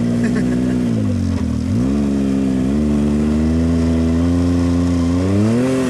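Can-Am Maverick X RC Turbo RR side-by-side's turbocharged three-cylinder engine working hard up a steep dirt climb. The revs dip about a second in, climb back and step up again, hold, then rise once more near the end.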